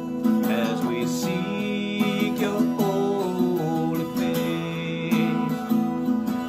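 Acoustic guitar strummed in steady chords, with a man singing a slow worship song over it.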